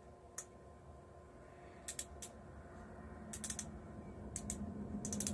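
Sharp plastic clicks, some in quick little clusters, from handling and twisting a plastic makeup applicator pen. A low steady hum grows louder near the end.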